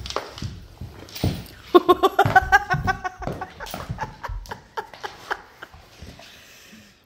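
Man and dog wrestling on a wooden floor: scuffling, thumps and clicks of paws and hands on the boards throughout. A short burst of rhythmic laughter about two seconds in is the loudest part. It quietens near the end.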